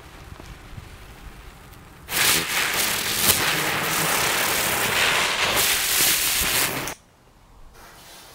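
Fire Disc ground spinner fireworks spinning on pavement, spraying sparks with a loud, steady crackling hiss. A faint fizz comes first, and the loud hiss starts about two seconds in and stops abruptly about five seconds later.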